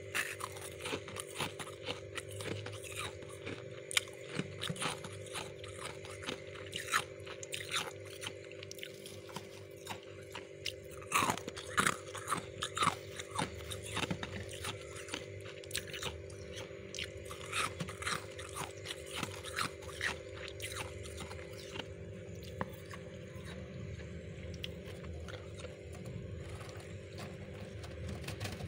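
Crisp crunching of refrozen powdery freezer frost: many irregular sharp crunches that thin out in the last several seconds, over a steady hum.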